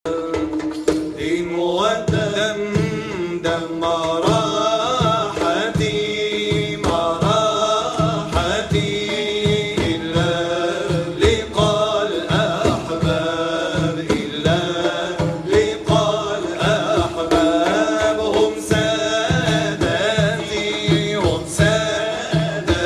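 Live Sufi nasheed: male voices chanting a wavering Arabic melody over a steady beat, carried by the stage loudspeakers.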